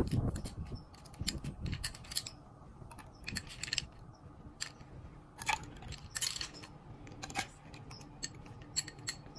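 Ice cubes scooped with a metal spoon from a glass bowl and dropped into a glass beaker of iced coffee: scattered clinks and clatters of spoon, ice and glass, the sharpest right at the start and about five and a half seconds in.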